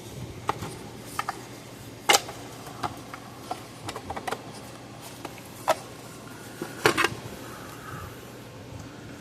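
Scattered clicks and light knocks of an electric fence charger's plastic case and internal parts being handled while it is fitted shut, with the sharpest knock about two seconds in and a close pair near seven seconds.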